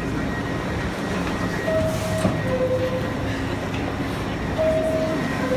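Door chime of an R62A New York City subway car: a clean two-tone, high-then-low chime that sounds twice, about a second and a half and about four and a half seconds in, over the steady noise of the train.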